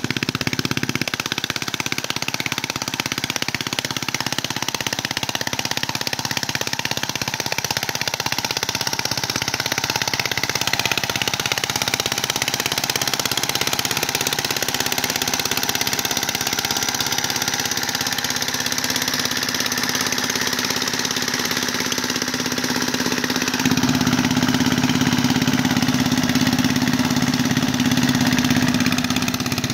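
The small engine of a walk-behind mud boat tiller runs steadily while the tiller works the mud of a flooded rice paddy. About two-thirds of the way through, its low hum becomes stronger and fuller.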